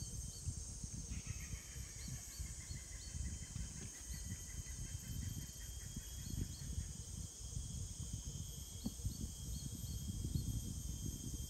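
Tropical forest ambience: a steady high insect drone with short repeated bird chirps. From about a second in, a bird calls in a long run of rapid notes that slowly fall in pitch over several seconds, all over an uneven low rumble.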